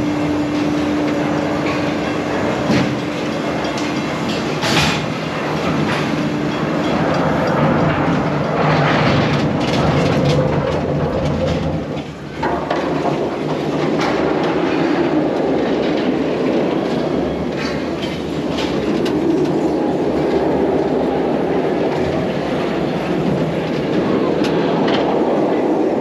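Serengeti Express park train running past close by: a steady rumble of the cars with the wheels clicking and clattering over the rails.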